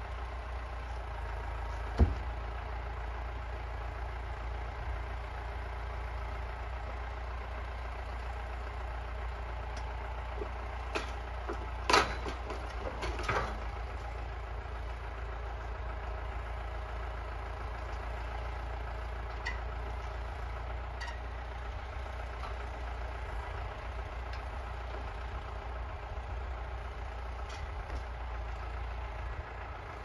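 Tractor engine running steadily, powering the hydraulic log-loader crane of a Metavic forestry trailer. A sharp knock comes about two seconds in, and a louder cluster of wooden knocks around twelve seconds in, as logs are handled in the grapple and set on the trailer.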